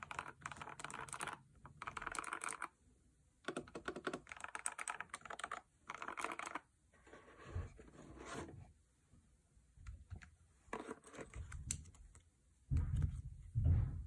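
Fast typing in bursts on a stock CIDOO ABM084 mechanical keyboard with prelubed Flamingo switches, a clacky sound the owner likens to marbles dropping on a desk. The bursts thin out after the middle, and a few dull thumps come near the end.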